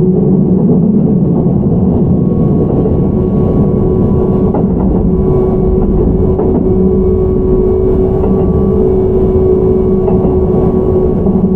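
Keihan 13000-series electric train heard from inside the car, running at a steady speed. There is a continuous rumble of wheels on rail and a steady hum from the Toyo IGBT traction equipment, with a few light rail-joint clicks around the middle.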